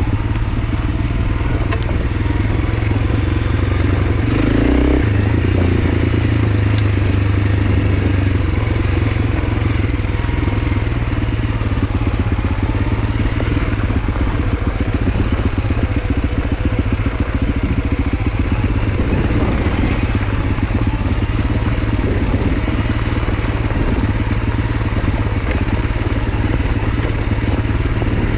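Honda CRF300L's single-cylinder four-stroke engine running steadily as the motorcycle is ridden off-road, with a brief change in the engine note about five seconds in.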